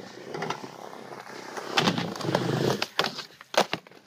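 Skateboard wheels rolling on concrete, growing louder as the board approaches, with a few sharp clacks of the board; the loudest clack comes about three and a half seconds in.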